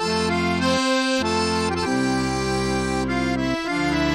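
Instrumental background music: sustained chords over a bass line that changes note about once a second.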